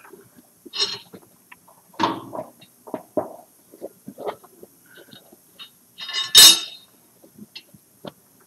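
Hands working a rubber inner tube into a motorcycle tire on a spoked wheel: irregular rubbing and scuffing of rubber with light metallic clinks from the rim. The loudest sound is one brief sharp scrape or clink about six seconds in.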